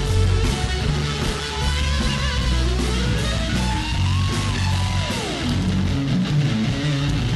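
Live rock band playing: a distorted electric guitar lead line over drums and bass guitar, with a held note about four seconds in that slides steeply down in pitch.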